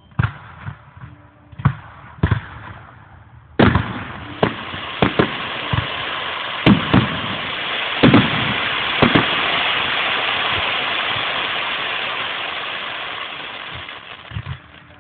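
Aerial fireworks shells bursting: several sharp bangs in the first few seconds, then from about three and a half seconds a long dense crackle, with more bangs over it, that swells and dies away near the end. Heard through a mobile phone's microphone.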